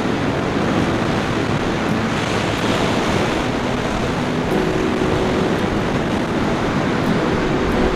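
Ocean surf washing onto a rocky shore: a steady, unbroken rushing noise.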